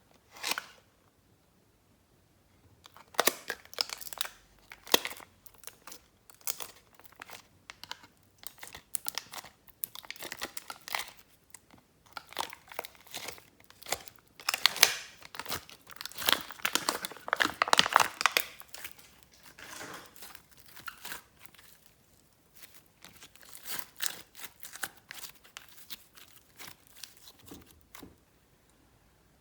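Glossy slime being worked by hand: a steady run of irregular sticky crackles and pops, starting about three seconds in and stopping just before the end.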